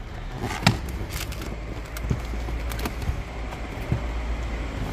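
Camera-handling noise while cardboard Lego boxes are shifted: a sharp click about half a second in, then a few lighter knocks, over a low steady rumble.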